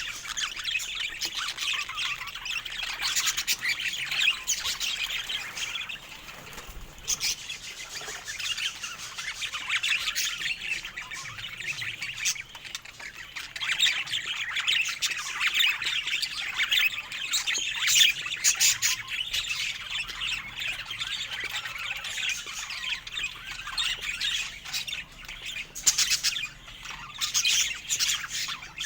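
Budgerigars chattering and squawking without a break, a dense busy warble with sharp calls scattered through it.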